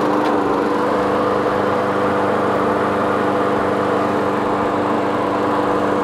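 Briggs & Stratton single-cylinder mower engine on a Toro 22-inch push mower, running steadily at an even speed just after catching on the pull-start. This is its first start after winter storage and servicing.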